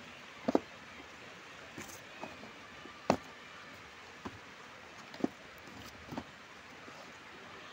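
Apples handled in the moulded pulp tray of a cardboard fruit box: several short knocks and thumps as they are lifted and set back down, the loudest about three seconds in, over a steady low hiss.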